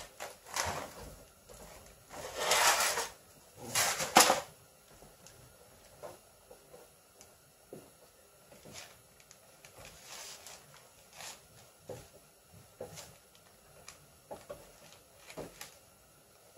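New rubber door weatherstrip being pressed by hand onto the metal flange of a car's door opening, the rubber rubbing and flexing as it is worked along. Two louder scuffing rustles come in the first few seconds, then only soft, scattered ticks and rubs.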